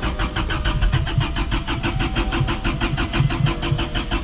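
Toyota Cressida's starter cranking the engine in a steady, rapid rhythm of about ten strokes a second, without it catching: a car that has sat unstarted for a long time and is being turned over from a portable jump-starter.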